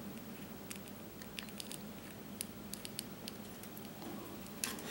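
Faint scattered small plastic clicks and light handling noise as jumper-wire connectors are fitted onto a radio receiver's channel pins, with a short cluster of clicks near the end.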